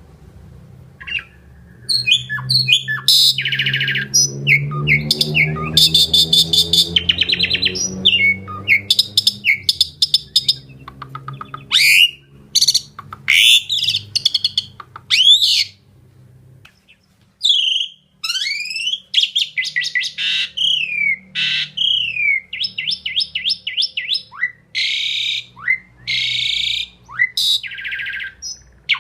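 Starling singing: a long, varied run of clicks, rattles and whistled notes, many sliding down in pitch, in quick phrases with short gaps. A low rumble runs underneath through the first half.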